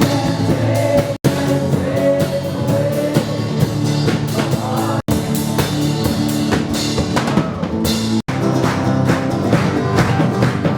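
Live worship band playing, a drum kit driving the beat under sustained instrumental notes. The sound drops out for an instant three times, where separate clips are joined.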